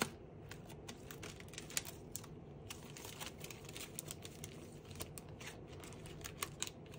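Stamp and die-set packaging being handled and opened: irregular small crinkles, clicks and ticks.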